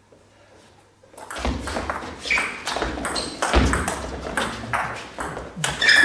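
Table tennis rally: the plastic ball pinging off bats and the table in quick succession, starting about a second in after a quiet moment.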